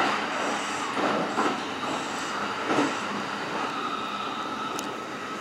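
Kintetsu limited express electric train running along the track, heard from the driver's cab: a steady rolling rush of wheels on rail with a few brief louder swells, and a thin steady whine coming in about two-thirds of the way through.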